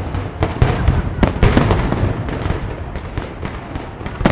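Firework shells from a professional display bursting in quick succession: sharp bangs over a steady low rumble and crackle. The bangs come thickest between about one and two seconds in.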